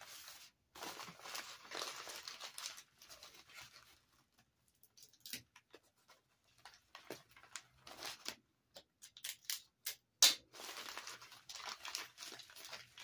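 Plastic bubble wrap crinkling and rustling in the hands as a small box is wrapped, in irregular bursts with short pauses, and one sharp click about ten seconds in.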